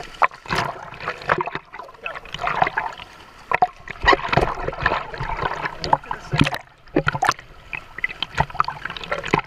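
Surf water splashing and sloshing in irregular bursts around and against a waterproof camera held at the waterline, as small waves break over waders.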